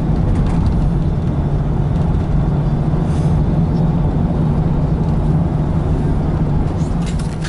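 Steady drone of a car driving along a highway, heard from inside the cabin: engine and tyre noise with a strong low hum.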